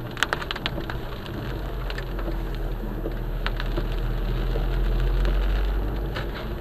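Car interior noise on a wet road: a steady low engine and tyre drone, with scattered sharp ticks of rain hitting the windscreen.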